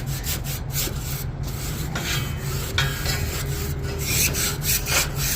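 Brush scrubbing the dirty fins of a rooftop unit's coil in repeated rasping strokes, a few a second, over a steady low rumble.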